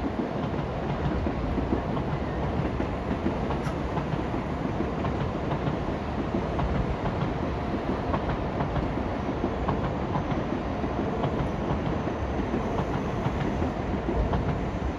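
A train running steadily on the rails.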